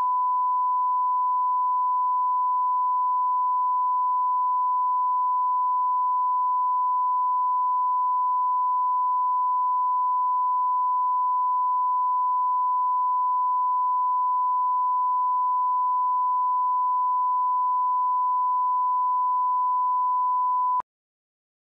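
Steady 1 kHz broadcast line-up reference tone at −20 dB, the tone of bars and tone. It holds one unchanging pitch, then cuts off suddenly with a faint click about a second before the end.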